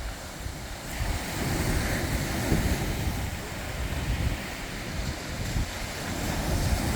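Sea surf: waves washing in as a steady rush, swelling about a second in and again near the end, with wind rumbling on the microphone.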